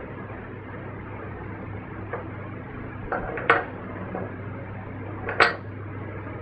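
Two sharp metal clinks, about three and a half and five and a half seconds in, with a few lighter ticks, over a steady low hum.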